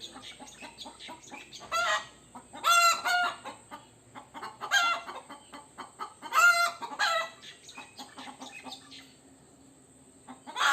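Rooster giving alarm calls to warn other chickens of danger: loud, harsh calls every one to two seconds, some in quick pairs, with short clucks in between, then a quieter spell near the end.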